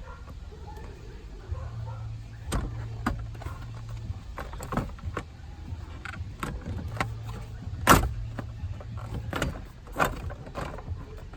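Plastic steering column cover being fitted back into place: a string of irregular clicks and knocks of hard plastic, the loudest about eight seconds in, over a low steady hum.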